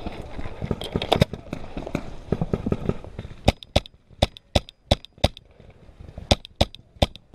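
Magfed paintball marker firing a string of single shots: sharp, short cracks at irregular spacing, a dozen or more, standing out most clearly in the second half.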